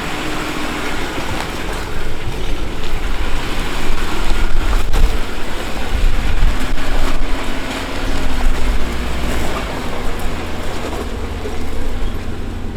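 Off-road vehicle engine running at low speed on a trail, a steady low rumble that gets louder about two seconds in.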